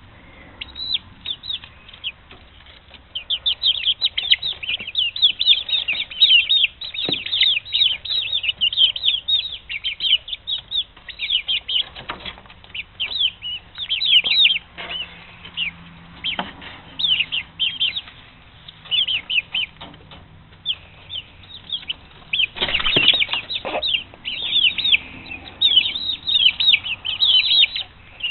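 Flock of six-week-old chicks peeping continuously in rapid, high chirps, with a few brief rustles.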